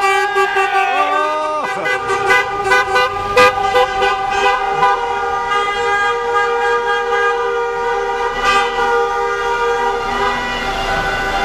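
Many car horns honking at once in long, overlapping blasts from a line of slowly passing cars, with a quick run of short sharp sounds in the first few seconds.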